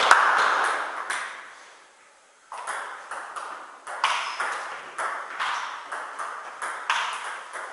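Table tennis rally: the celluloid ball clicks sharply off bats and table about three times a second, each click echoing briefly in the hall. The clicks start about two and a half seconds in, after a short lull.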